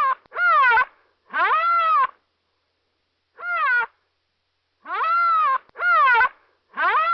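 A repeated animal-like call: short pitched cries of about half a second each, rising then falling in pitch, some in pairs, with dead silence between them.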